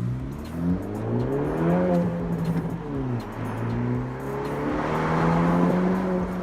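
2017 Honda Civic Si's 1.5-litre turbocharged four-cylinder with resonator and muffler deleted, accelerating under load: the engine note rises for about two seconds, drops at a gear change about three seconds in, then climbs again.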